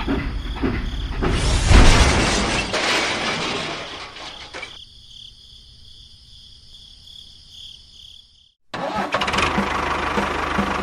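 Small motor of a miniature DIY tractor running, with a loud rushing noise in the first few seconds that falls away to a thin high whine. The sound cuts out suddenly near the end, and a rhythmic chugging motor starts up again.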